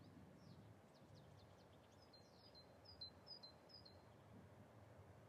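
Near silence with faint bird chirps, including a short run of about five quick chirps in the middle.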